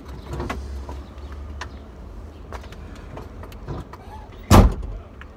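Inside a car: a steady low rumble with scattered light clicks and knocks, and one loud, heavy thump about four and a half seconds in.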